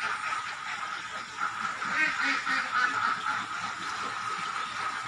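Domestic ducks quacking, with several calls bunched together about two to three seconds in, over a steady high-pitched hum.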